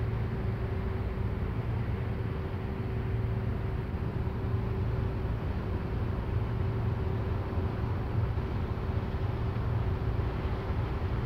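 Container ship's engine droning steadily as it passes: a low hum with a faint steady tone above it.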